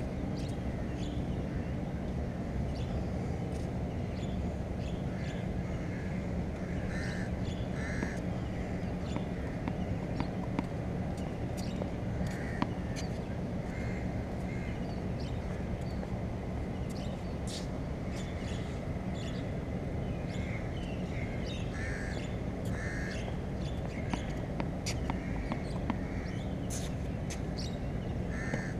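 Bird calls, short and often in pairs, over a steady low background rumble, with scattered sharp pops of a tennis ball struck by a racket and bouncing off a practice wall.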